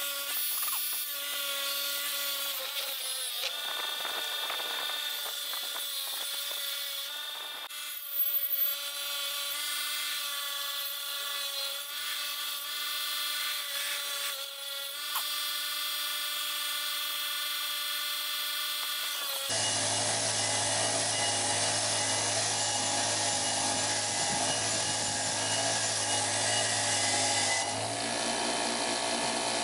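Radley bench grinder running, its wire wheel scratching rust from a pitted steel axe head pressed against it: a steady motor hum under a rasping hiss of wire on metal. A short louder scrape comes about a third of the way in, and about two-thirds of the way through the sound changes abruptly, fuller and a little louder, with a low hum added.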